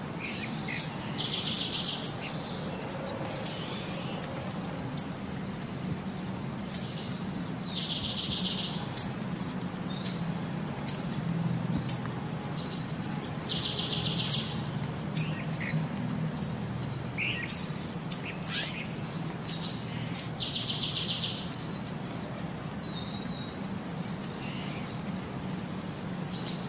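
Birdsong ambience: short sharp high chirps about once a second, and a buzzy trill about a second long that repeats about every six seconds, like a looped nature track, over a steady low hum.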